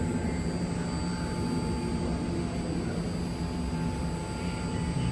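BART train standing at an underground platform: a steady mechanical hum and rush from its running equipment, with several constant whining tones held on top.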